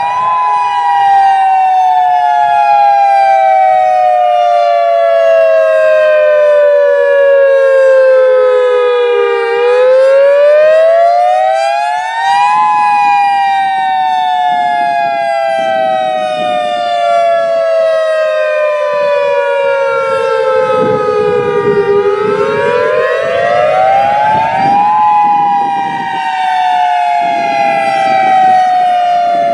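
Federal Signal EOWS 612 electronic outdoor warning siren sounding its wail signal during a test: two close tones together rise in pitch over about three seconds and then fall slowly over about nine, a cycle heard twice.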